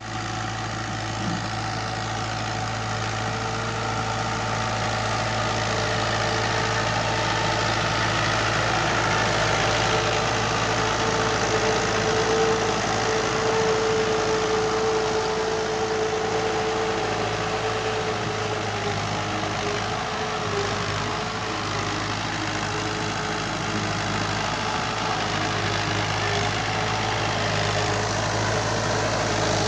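Fiat 640 tractor's diesel engine running steadily while pulling a disc harrow through a field.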